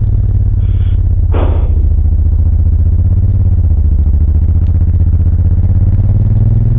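A 2000 Suzuki VL1500 Intruder LC's liquid-cooled V-twin engine running steadily while under way, its pitch rising slightly once or twice. There are two brief hisses about a second in.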